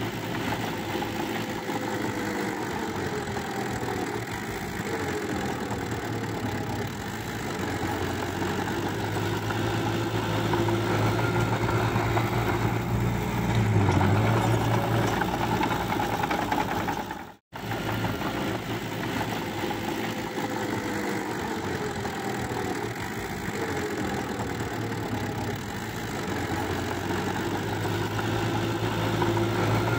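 Small crawler bulldozer's diesel engine running steadily as it pushes wet soil and mud, with a deep steady hum; the sound cuts out completely for an instant a little past halfway, then resumes.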